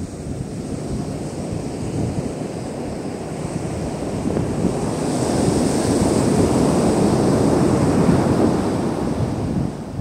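Sea surf washing on the beach, with wind rumbling on the microphone. The surf swells louder about halfway through and eases off near the end.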